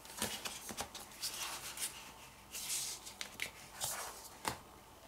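Hands handling a DVD set's plastic disc case and discs: scattered light clicks and taps with short bursts of rustling, the longest rustle about halfway through.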